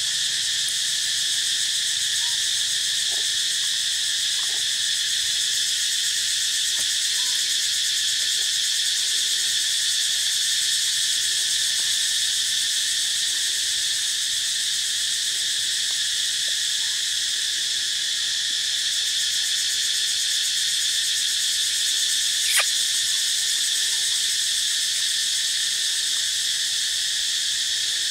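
Steady, high-pitched insect chorus shrilling without a break, typical of a tropical forest. One short sharp click stands out about three-quarters of the way through.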